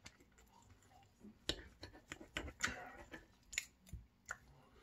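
Metal knife and fork clicking and scraping against a plate while cutting food: about half a dozen short, irregular clicks over near silence.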